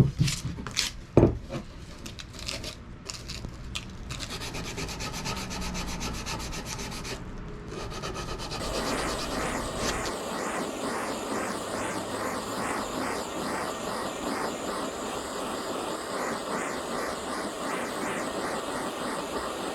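Hand file or rasp scraping the wooden handle of an axe, carving a grip into it stroke after stroke. Two sharp knocks in the first second and a half, and the scraping turns denser and more evenly paced about halfway through.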